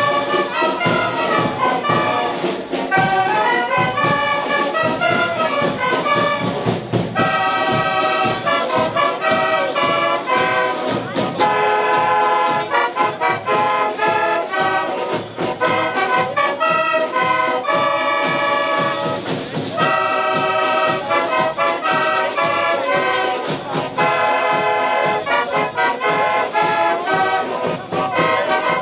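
Brass band playing, trumpets and trombones sounding chords and melody lines in phrases with short breaks between them.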